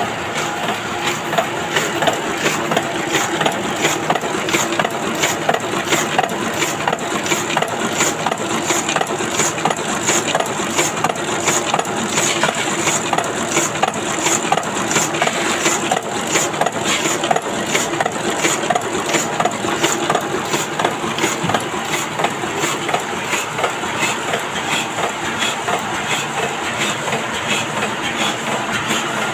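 Heidelberg GTO two-colour sheetfed offset printing press running at production speed: a steady, fast, even mechanical clatter as the cylinders turn and sheets feed through, one clack after another.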